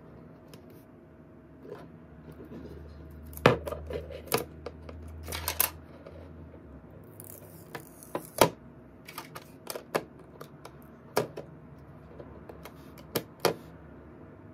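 Sharp clicks and taps of a tempered-glass screen protector kit being handled on a smartphone: fingernails and a plastic alignment frame knocking against glass and the table, with a brief hiss about seven seconds in.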